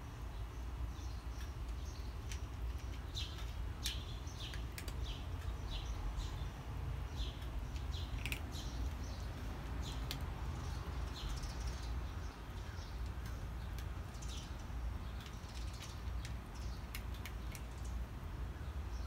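Small birds chirping, many short high calls scattered irregularly, over a steady low rumble.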